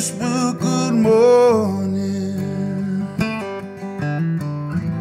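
Background music: an acoustic blues song with guitar playing between sung lines, and a long wavering note over the first second and a half.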